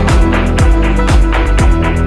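Loud music with a steady kick drum beating about twice a second.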